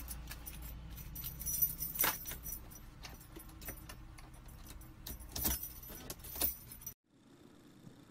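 A bunch of car keys jangling and clicking as a monkey fumbles them at a car's ignition, over a steady low hum. It cuts off suddenly about seven seconds in, leaving quiet room tone.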